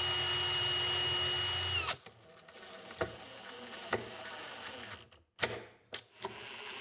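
Cordless drill/driver running at a steady whine as it drives a screw through the slotted hole of a metal drawer slide into the cabinet side, stopping abruptly about two seconds in. A few light clicks and taps follow.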